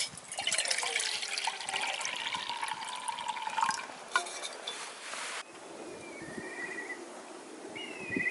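Liquid being poured into a container, with a tone that rises as it fills, running for about five seconds before stopping suddenly.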